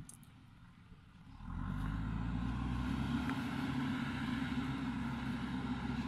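A vehicle engine running steadily, with an even low drone that comes in about one and a half seconds in after a short, quieter stretch.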